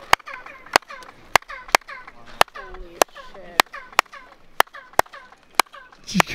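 Hand claps, about two a second, each answered by a short falling chirp echoed back from the stone staircase of the El Castillo pyramid at Chichen Itza. The pyramid's steps turn each clap into an echo like a bird's song.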